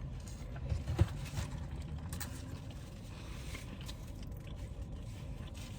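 Quiet eating sounds: faint chewing and handling of food, with one sharp click about a second in, over a steady low background rumble.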